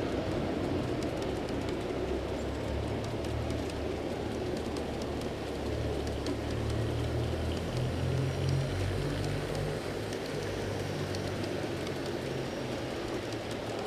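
G scale model freight train with steel wheels rolling past, a steady rumble with fine clicking over the rail joints. A low hum from a pair of mid-train diesel locomotives swells about six to ten seconds in as they go by.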